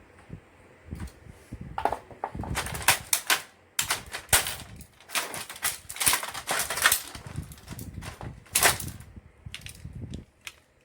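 Irregular clicks and clacks of hard plastic and metal inkjet-printer parts being handled and taken apart by hand, with some sharp snaps among them.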